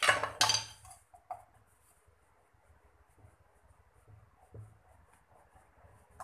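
Hands kneading chapati dough in a plate: a loud rubbing, scraping clatter for about the first second, then faint dabs and small clicks.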